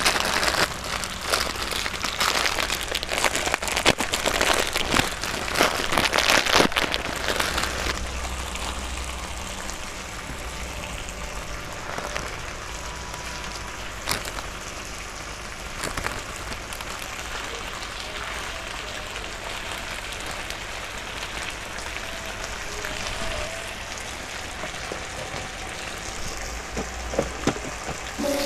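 Close-miked eating of curry noodles: wet slurping, chewing and crackly mouth sounds with small clicks, busier in the first several seconds and then steadier.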